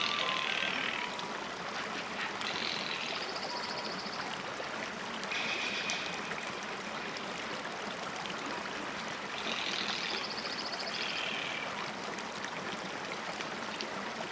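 Steady rush of running water, like a stream, with a few short, high trills heard over it several times.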